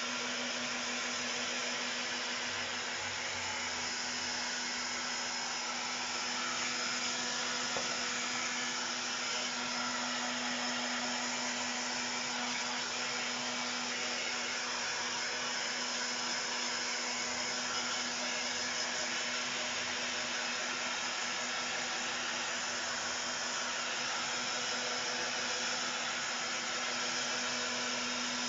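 Hair dryer with a diffuser blowing steadily, a constant rush of air over a low motor hum, drying freshly sprayed paint on a painting.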